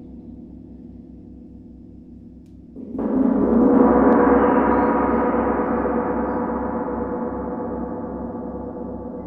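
Large gong struck about three seconds in, its ringing swelling for about a second and then slowly fading, over the low pulsing hum of a gong still ringing from before.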